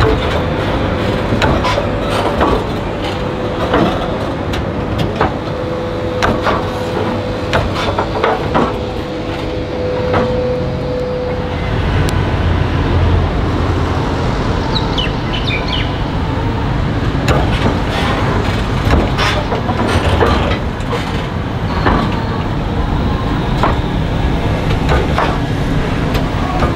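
A tram's wheels rolling over a portable crossover bolted on top of the tram tracks, clacking and knocking repeatedly over the joints of the temporary rail plates under a steady low rumble. A thin steady whine runs for about the first ten seconds.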